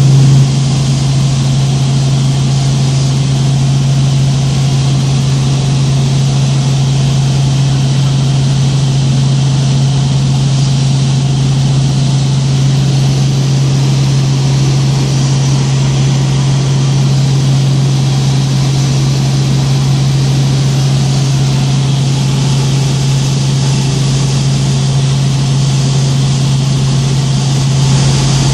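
Robinson R44 helicopter in flight: its six-cylinder Lycoming piston engine and rotors making a loud, steady drone with one constant low hum.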